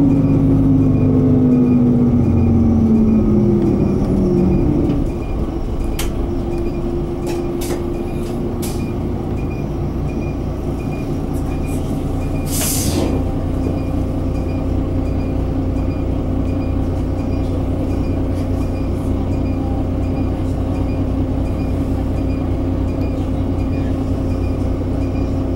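On-board sound of a Mitsubishi Fuso Aero Midi MK bus's 6M61 inline-six diesel: the engine note falls as the revs drop over the first five seconds, then settles into a steady low drone. A short hiss of air comes about halfway through.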